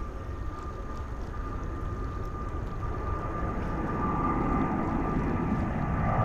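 Jet engines of a Japan Airlines Boeing twinjet climbing out after takeoff: a steady whine over a rumble that swells louder through the last few seconds as the plane comes nearer.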